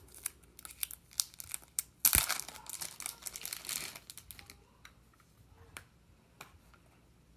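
Plastic wrapping on a trading card crinkling and rustling as the card is unwrapped, with scattered small clicks. The loudest crinkling starts about two seconds in and lasts about two seconds.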